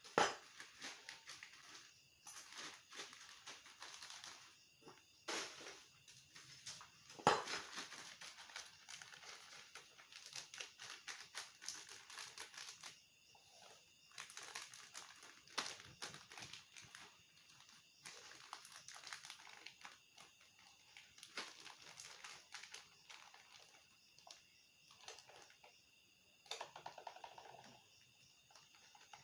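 Crisp fried cassava chips being handled and stirred: an irregular run of crinkling, crackling clicks, with a few louder knocks, the loudest just after the start and about seven seconds in.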